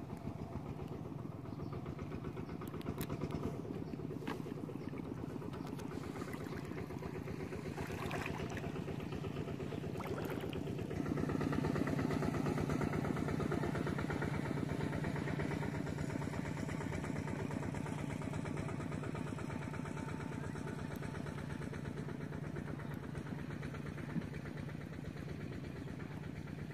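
A small engine running steadily at a constant pitch, growing a little louder about eleven seconds in.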